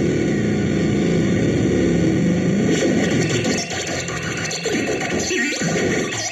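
Amalganite noise-cell synthesizer with built-in delay putting out a dense, warbling electronic drone of clustered low tones. About three seconds in it turns choppy, breaking into stuttering pieces with sliding pitch.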